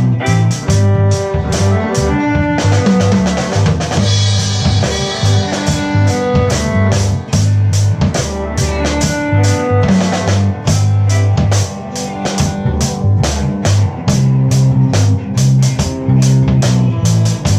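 Small band playing a reggae instrumental passage: drum kit with rim clicks and a steady beat of about four strokes a second, bass and guitar, with held melody notes over them.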